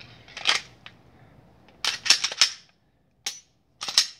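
A Glock 17 being reassembled by hand, its slide and recoil spring going back onto the polymer frame: a series of sharp metallic clicks and snaps, with a cluster about two seconds in and another near the end.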